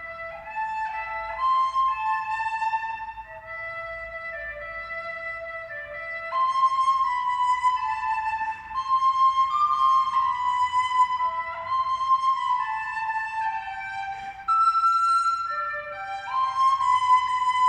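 Instrumental music: a slow melody of held, high, flute-like notes, at times two lines overlapping.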